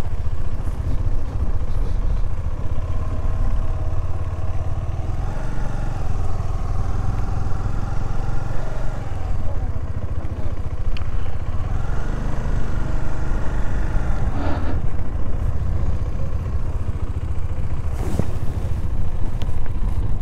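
KTM 390 Adventure's single-cylinder engine running as the motorcycle rolls slowly over gravel, its revs rising and falling a few times. A sharp knock comes near the end.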